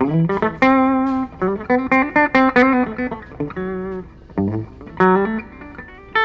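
Gibson Les Paul '50s Tribute T electric guitar with humbuckers, played clean through a Blackstar tube amp: a phrase of single picked notes, opening with a note slid up in pitch, with slight vibrato on some held notes.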